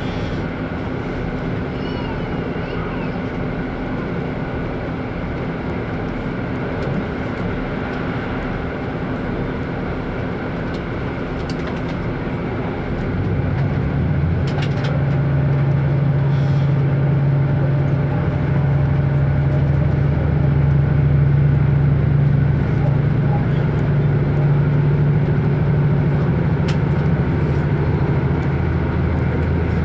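Running sound inside a KiHa 85 diesel railcar on the move: a steady rumble of wheels on rail and an underfloor diesel engine hum. About 13 seconds in, the engine's low hum grows louder and holds there.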